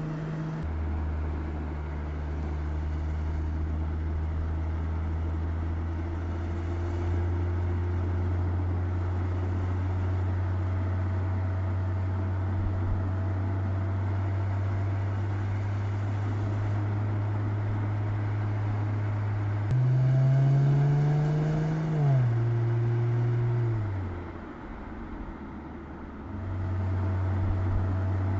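Mercedes-Benz E-Class Coupe driving at speed: a steady low engine drone with road noise. About twenty seconds in the engine note climbs, then drops in steps and briefly quietens before the steady drone returns.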